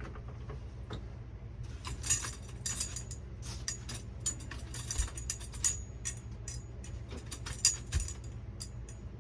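Small metal objects clinking and jangling: a rapid, irregular run of light clicks with a ringing note, starting about two seconds in, over a steady low hum.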